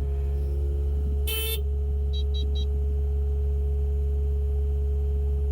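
Kubota KX080 mini excavator's diesel engine idling with a steady hum, heard from the cab. About a second in a short buzz sounds, then three quick high beeps from the cab controls as the auxiliary hydraulic circuit for the hammer is switched on.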